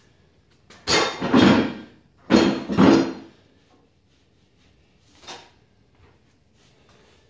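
Cast-iron hex dumbbells being set down onto a wooden rack: two loud clattering knocks of iron on wood about a second and a half apart, then a smaller knock a couple of seconds later.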